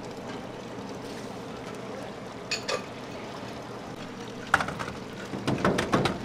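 Broth poured from a metal pitcher into small aluminium cups, a steady splashing trickle, with sharp metal clinks and knocks from about four and a half seconds in.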